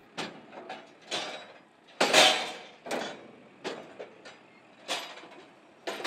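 KRONE Fortima round baler clanking and knocking as a finished bale is ejected: about seven separate knocks, the loudest about two seconds in.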